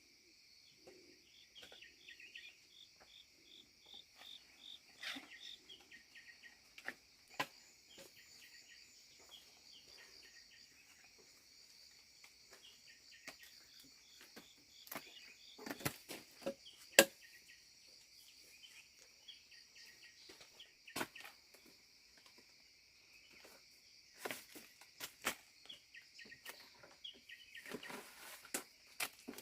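Steady chorus of insects trilling in two high bands, with scattered clicks and knocks over it, the loudest a single sharp click a little past the middle.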